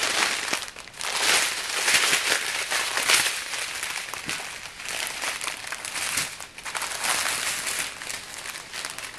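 Thin plastic packaging, the small bags of diamond painting rhinestones, crinkling and rustling as it is handled and packed. The crinkling comes in uneven spells, louder for a couple of seconds at a time.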